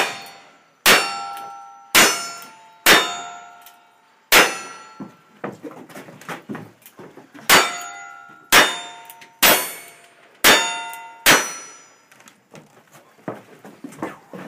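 Two strings of five single-action revolver shots, about one a second, each followed by the bright ring of a steel plate target being hit. There is a pause of about three seconds between the strings, and a few light knocks and shuffling near the end.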